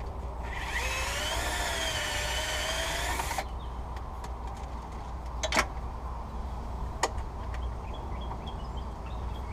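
Power driver running for about three seconds with a wavering motor whine, then cutting off suddenly, as it spins the 14 mm battery hold-down fastener loose. Two sharp clicks follow a little later.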